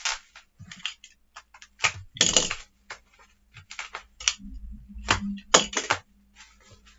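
Bubble wrap being handled and pulled open by hand: irregular crinkling and crackling of the plastic, louder around two seconds in and again past five seconds.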